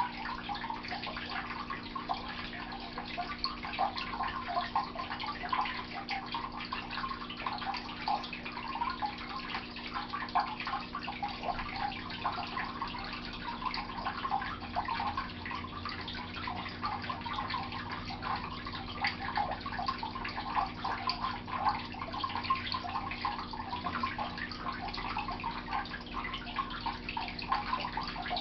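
Continuous trickling, water-like patter of irregular small ticks over a low steady hum.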